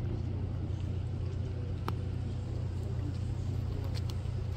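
A steady low rumble, with a faint sharp tick about two seconds in and two more near four seconds.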